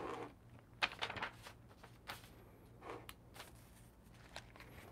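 Faint handling noise: a sheet of paper being laid out and smoothed on a desk, with a few light taps and rustles.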